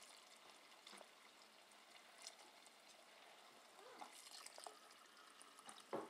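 Faint kitchen tap water running into a pot of peeled potatoes, the stream splashing among them as the pot fills.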